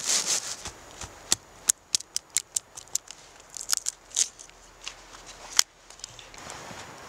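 Knife cutting small kindling sticks on a wooden stump: a run of sharp taps and knocks as the blade strikes through the wood into the block, the loudest near the end, with some brushing and handling of the sticks.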